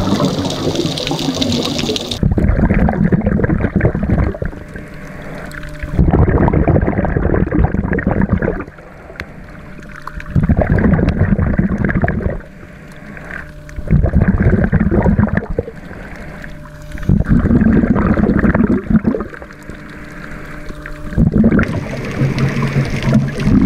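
Scuba diver breathing underwater through a regulator: loud rushes of exhaled bubbles about every four seconds, with quieter gaps for the inhalations between them. A faint steady hum shows in the quiet gaps.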